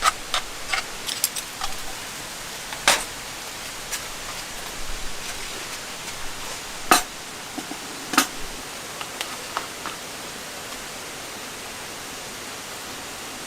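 Steady rain hiss with scattered louder drops striking a surface, the sharpest about 3, 7 and 8 seconds in, thinning out in the last few seconds.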